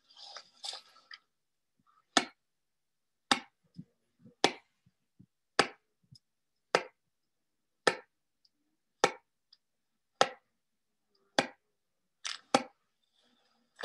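Snow saw worked against an isolated snow-pit column during a stability test: about ten short, sharp strokes, evenly spaced a little more than a second apart, with one doubled stroke near the end.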